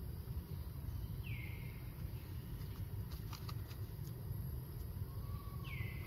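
Two short whistled calls, each falling in pitch, about four and a half seconds apart, over a steady low rumble, with a few faint clicks in between.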